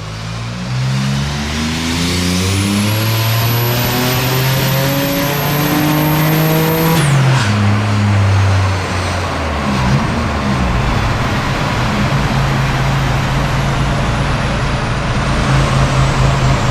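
Turbocharged 3.8-litre V6 of a VY Holden Commodore revving up hard under load, with a high whine climbing alongside it. About seven seconds in, the revs drop sharply, and the engine then holds a steady lower drone.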